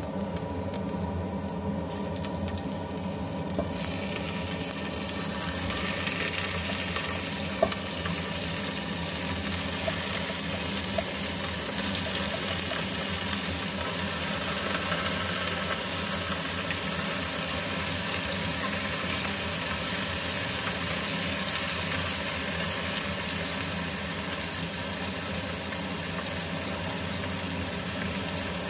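Chicken pieces sizzling steadily in a hot stainless steel stockpot, the sizzle starting a few seconds in as they land in the pot, with a couple of sharp knocks of a utensil against the pot and a steady low hum underneath.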